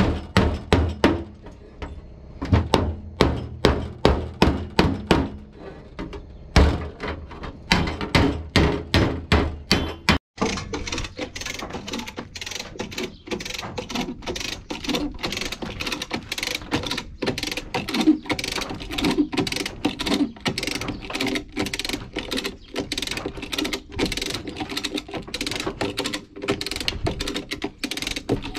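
Hand hammer striking the sheet metal of an old Mercedes truck door in quick runs of blows for about the first ten seconds. Then a lever chain hoist ratchets with steady rapid clicking and chain rattle as it is pumped to pull out the crumpled truck cab corner.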